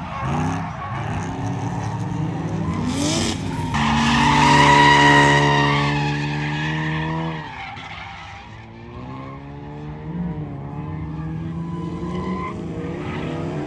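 Drift cars sliding through a corner, engines revving hard and tyres screeching. The revs drop sharply about seven and a half seconds in, then climb again.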